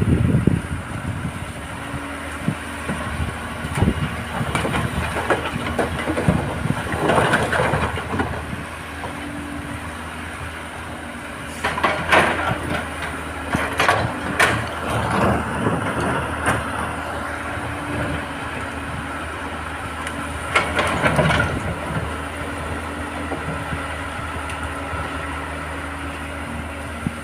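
Excavator diesel engine running steadily at a rock-working site, with irregular bursts of clanking and rock clatter a few times.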